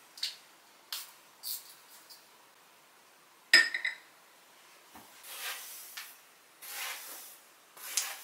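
Small hard objects handled on a glass tray: a few light clicks, then one sharp, ringing clink of metal or glass about three and a half seconds in. Three soft swishing sounds follow in the second half.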